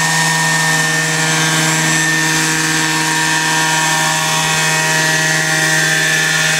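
Vario scale Dauphin radio-controlled helicopter with a petrol engine, four-blade main rotor and Fenestron ducted tail rotor, hovering low: a steady engine and rotor drone that holds an even pitch and level.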